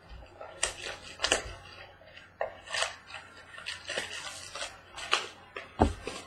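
Trading card box and packs being opened by hand: irregular crinkles, scrapes and sharp taps of cardboard and plastic wrapping, with a louder thump near the end.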